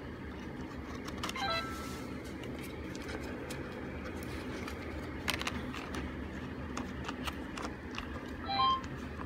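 Hands swapping the picture sheets on a Benesse Shimajiro electronic talking toy board: soft plastic handling noise and a few sharp clicks, with two short electronic tones from the toy's speaker, one about a second and a half in and one near the end.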